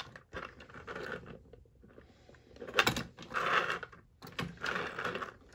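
Two diecast toy cars being shifted and rolled by hand on a plastic turntable: about three spells of plastic-wheel rolling and scraping, with a sharp click about three seconds in.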